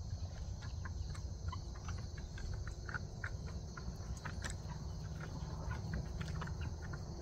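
Crickets chirring steadily, with scattered short clucks and scrapes from chickens coming down a wooden ramp out of their coop, and one sharper sound about four and a half seconds in.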